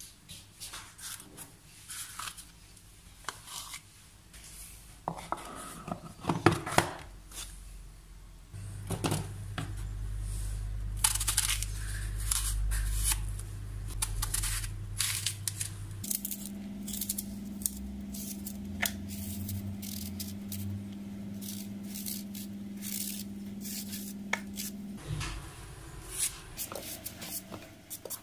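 A kitchen knife peeling and cutting apples into chunks over a bowl: irregular clicks, scrapes and taps of the blade through the fruit and against the bowl. About a third of the way in a steady low hum sets in, jumps higher in pitch about halfway through and stops a few seconds before the end.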